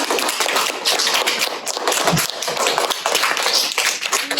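Audience applauding: many people clapping at once, a dense, steady clatter of hand claps.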